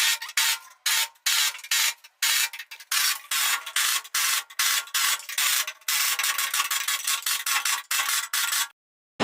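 Hand rubbing or scraping strokes on an engine part, about two a second. The strokes become longer and more continuous in the second half and stop abruptly near the end.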